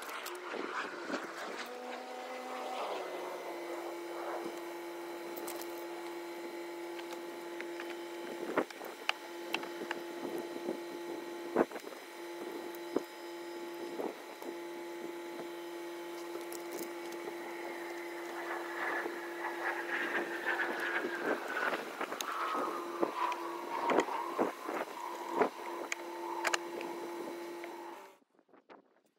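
A steady motor hum that shifts pitch about three seconds in, with a slowly falling whine later on, under scattered sharp clicks and knocks of hand tools being worked on the car's underside; the sound cuts off suddenly near the end.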